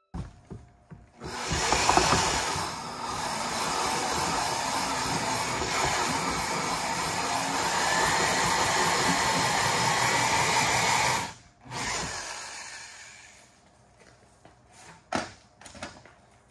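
Corded drill driving a tenon cutter on the end of a debarked log, running steadily for about ten seconds as it shaves the tenon, then stopping suddenly; a few knocks follow near the end.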